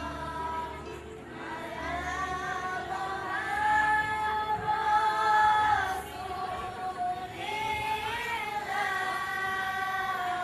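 A group of children singing together in unison, holding long notes and gliding between them.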